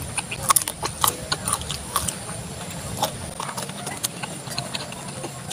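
Close-up mouth sounds of someone chewing soft food: wet smacks and clicks at irregular intervals.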